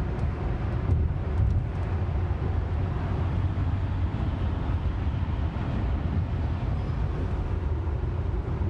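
Steady road and tyre noise inside a Tesla cruising at highway speed, about 59 mph, mostly a low rumble, with a few faint ticks in the first second or two.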